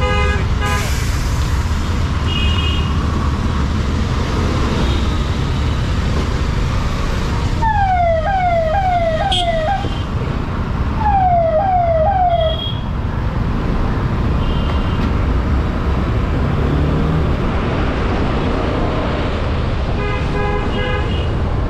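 BMW motorcycle engine and city traffic giving a steady low rumble, with vehicle horns beeping near the start and again near the end. About 8 seconds in, and again about 11 seconds in, an electronic siren-like horn sounds a run of quick falling tones.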